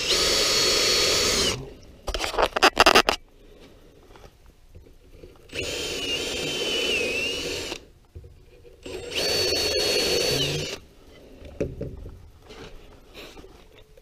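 Makita brushless cordless drill/driver running three times into wood, each run a steady whine of a second and a half to two seconds, the middle one dipping in pitch under load. Between the first and second runs comes a short burst of rapid, loud clicking.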